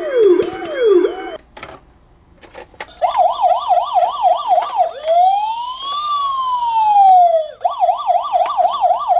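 Police car siren: two falling sweeps, a short break with a few clicks, then a fast warbling yelp, one slow rising and falling wail, and the fast yelp again.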